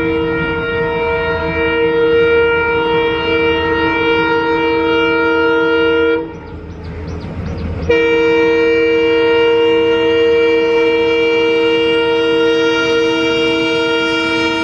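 Train horn sounding a long two-note chord, cut off about six seconds in, then a second long blast after a short noisy gap, with the low rumble of a running train underneath.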